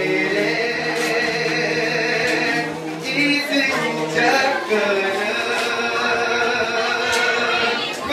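A small group of male voices singing a cappella into microphones, crooning in close harmony with long held chords. The singing eases off briefly about three seconds in, then carries on.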